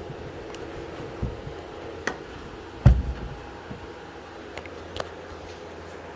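Camera handling noise: a few scattered knocks and clicks as the camera is moved about, the loudest about three seconds in, over a faint steady hum.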